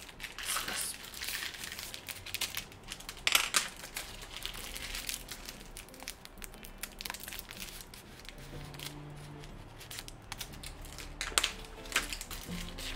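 Plastic and paper packaging crinkling and rustling as a set of makeup brushes is unwrapped, with irregular sharp crackles and clicks, loudest about three seconds in and again near the end.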